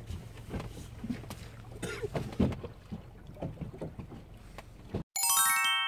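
Knocks and clatter aboard a small inflatable boat at sea, over wind rumble on the microphone. About five seconds in it cuts off suddenly and a chiming sound effect comes in, a rising run of held tones.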